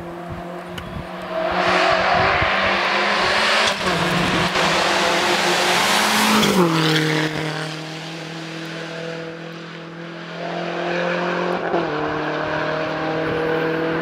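Rally car engine at high revs, loudest as the car comes by close, then dropping sharply in pitch about six and a half seconds in as it passes. It pulls away up the road with a second step down in pitch near twelve seconds.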